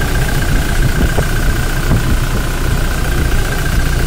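Toyota Innova Crysta diesel engine idling steadily, with a thin constant whine over the low running note. It started only after WD-40 was sprayed into the air intake, which the mechanic takes for an injector problem: the injectors are not getting enough diesel pressure to start, though once started the engine keeps running.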